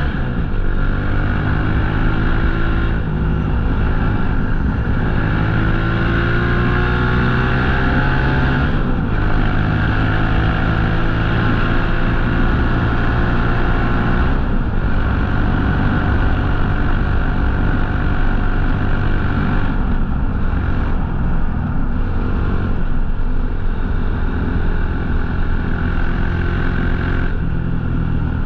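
Motorcycle engine under way, pulling through the gears: its pitch climbs and drops back at each shift, about six times.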